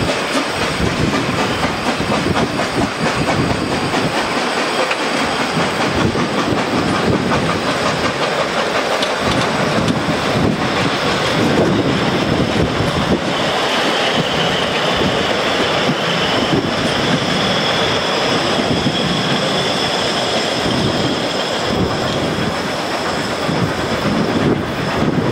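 Coaches of a 750 mm narrow-gauge train rolling past, their wheels clattering over the rail joints. From about halfway through, a high, thin squeal of wheels on the curving track rises over the clatter.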